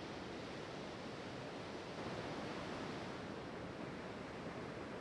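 Ocean surf: the steady wash of waves breaking on a beach, a little louder about two seconds in.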